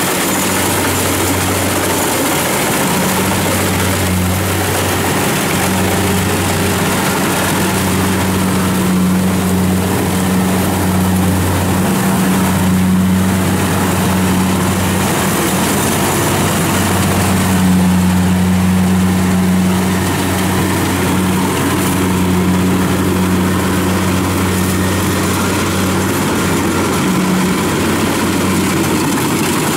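Kubota DC-70 rice combine harvester's diesel engine running steadily under load as it cuts and threshes rice, a continuous low hum with mechanical noise over it.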